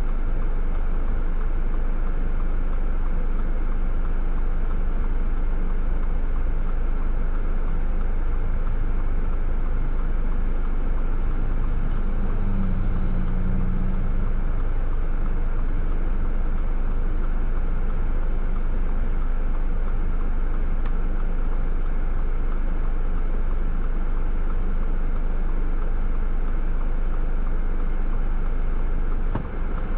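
Steady road noise of a car driving: tyres on pavement and engine running, with a heavy low rumble. A brief low hum rises about twelve seconds in, and the noise wavers near the end.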